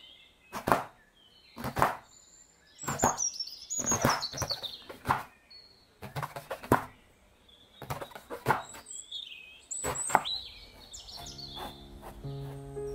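Knife slicing through eggplant and knocking on a wooden cutting board, a chop about every second, sometimes several in quick succession. Short high chirps come between the chops, and soft music comes in near the end.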